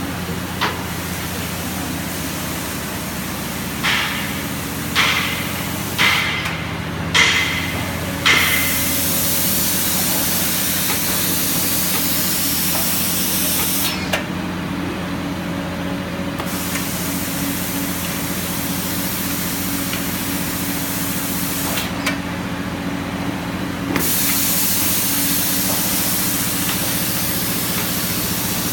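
Automatic spray-painting line for concrete roof tiles running with a steady machine hum. Its spray nozzles hiss in long bursts of several seconds, starting about a third of the way in and breaking off twice for a couple of seconds. Before the spraying begins there is a run of about five sharp knocks with a short ring.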